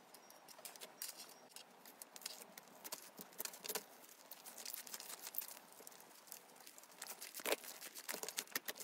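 Fluffy slime coated in clear slime being squeezed and kneaded by hand: a quiet, irregular run of small sticky crackles, clicks and pops, the strongest about seven and a half seconds in.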